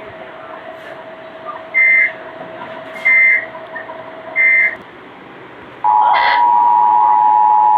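Emergency Alert System tones over a TV broadcast: three short, harsh bursts of SAME digital data a little over a second apart, then about six seconds in the steady two-tone EAS attention signal begins.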